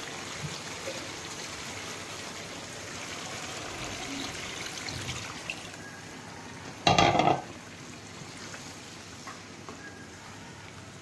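Water poured into a kadai of frying chicken masala, then the curry sizzling and bubbling on the stove. A brief loud clunk about seven seconds in.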